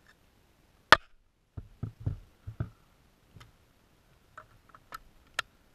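Scattered clicks and dull knocks of tools being handled against wooden framing, with no power tool running. A sharp click comes about a second in, a cluster of low thumps a second later, and a few lighter clicks near the end.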